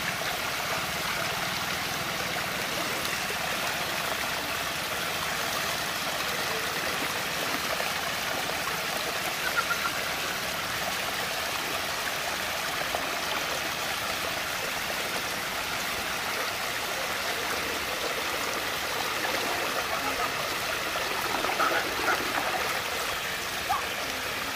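Steady rushing of water swirling down a large whirlpool vortex, with a few brief louder moments.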